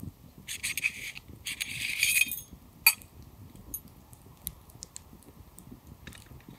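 Metal tubes scraping and clinking together as they are handled and fitted into one another: two rattling scrapes in the first couple of seconds, then one sharp clink.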